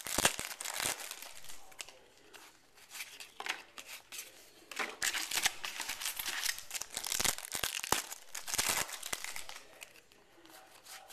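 Baseball trading cards and their foil pack wrappers being handled: irregular crinkling and rustling as cards are slid and flipped through, with quieter pauses in between.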